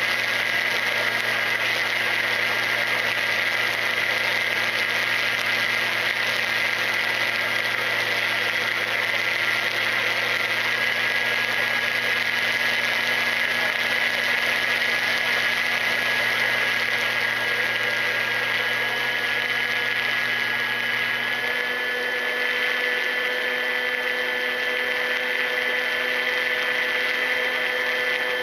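Electric motor and propeller of a Ranger EX FPV plane running at steady cruise throttle, a constant whine recorded by the onboard camera. Its tone shifts slightly about three quarters of the way through.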